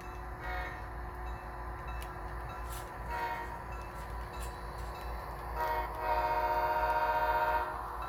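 Model diesel locomotive's Tsunami 2 sound decoder sounding an air horn through its small onboard speaker: three brief toots spaced a couple of seconds apart, then a long blast starting about six seconds in, the loudest part. A low steady rumble runs underneath.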